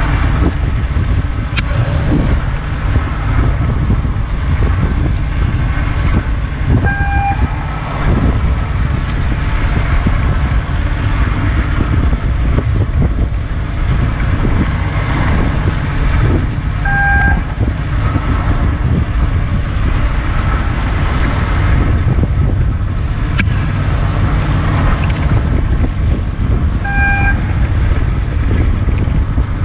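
Fishing boat's engine running with a steady low rumble and wind on the microphone. A short electronic beep sounds three times, about every ten seconds: a longline setting timer, the cue to clip on the next branchline.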